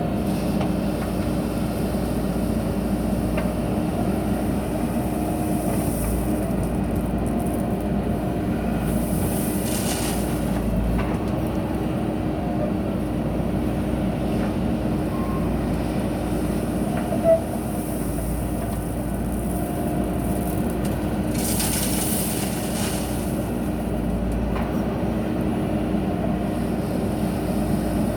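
Diesel engine of a JCB backhoe loader running steadily with a low hum. High hissing comes in briefly about ten seconds in and again just after twenty seconds, and there is a single sharp knock near the middle.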